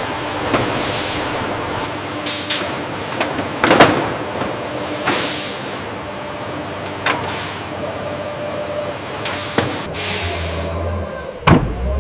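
Factory machinery running, with short hissing bursts every second or two, like compressed-air releases, over a steady din and a faint high whine.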